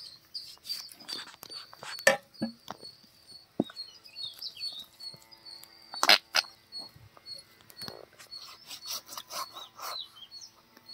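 Irregular knocks and clicks from a dressed country chicken being handled and cut on a wooden chopping block, loudest about two seconds and about six seconds in, with a cluster of smaller knocks near the end. Small birds chirp repeatedly in the background throughout.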